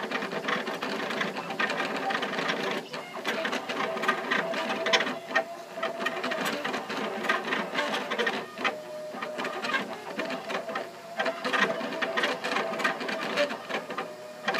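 Aluminatus 3D printer printing at high speed, about 126 mm/s on perimeters and 180 mm/s on infill. Its stepper motors whine in tones that change pitch and break off many times a second as the print head darts back and forth.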